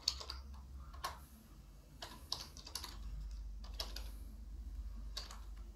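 Computer keyboard keys pressed one at a time in scattered, unhurried clicks while a short Linux terminal command is typed, over a low steady hum.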